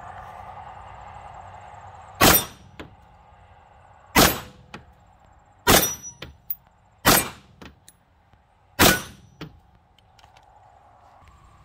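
Five slow, deliberate shots from an AR-style rifle, one every one and a half to two seconds, each followed about half a second later by a fainter clang of a steel target being hit.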